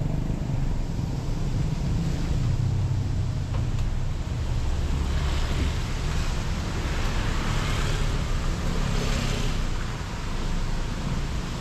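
A car driving on a wet street in the rain, heard from a camera mounted on its hood. There is a steady low rumble with wind buffeting the microphone, and a rushing hiss of tyres and rain on the wet road that swells several times in the second half.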